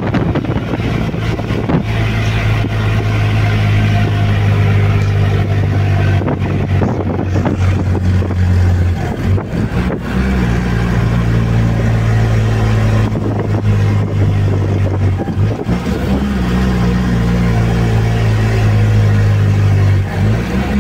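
Mercedes-Benz truck's diesel engine running steadily under load, heard from inside the cab. Its note breaks off briefly twice, a little before halfway and again about three-quarters of the way through, then picks up again.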